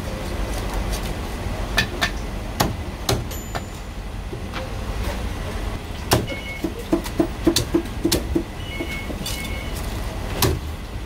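Chinese cleaver chopping crisp-skinned roast suckling pig on a wooden chopping block: sharp knocks scattered throughout, with a quick run of chops at about five a second from about six to eight seconds in, over steady background traffic noise.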